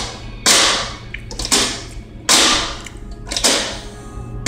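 The metal turn-handle of a coin-operated gumball-style candy machine being forced and twisted without a coin, giving four sharp metallic rattles about a second apart, each fading quickly.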